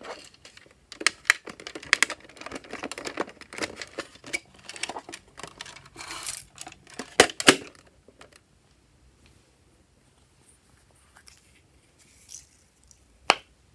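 Plastic toy coin bank handled, shaken and tipped, with a dense run of clicks and rattles for about eight seconds as its small contents spill out. Then near quiet, broken by a single sharp plastic snap near the end as a small pumpkin-shaped case is opened.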